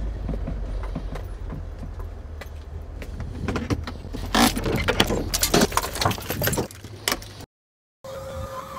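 A two-ton box truck's engine running with a steady low rumble as it pulls in and stops, with a run of sharp metallic clicks and rattles in the second half.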